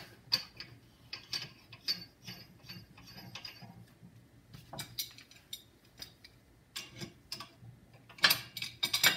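Irregular metal clicks and clinks as a spanner lock nut is worked onto the bottom of a hydraulic press cylinder, thinning out in the middle and with a cluster of louder knocks about eight seconds in.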